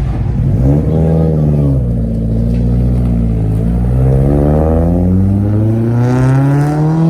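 A car engine being revved while parked: a short rise in revs about a second in that falls back, then a slow, steady climb in revs over the next several seconds.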